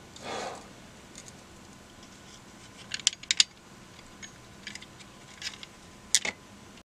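Sharp little plastic clicks and taps from a digital multimeter's circuit board and plastic case being handled and fitted together. There is a soft rustle at the start, a quick cluster of clicks about three seconds in, and scattered clicks near the end. The sound cuts off suddenly just before the end.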